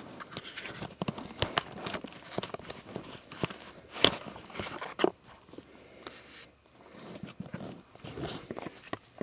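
Packaging being handled while digging the bulbs out of an HID conversion kit box: irregular clicks, knocks and rustles of cardboard and plastic parts, with two sharper knocks about four and five seconds in.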